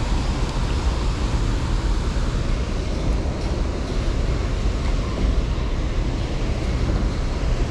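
Steady rushing noise over a deep, even low rumble, with no distinct events.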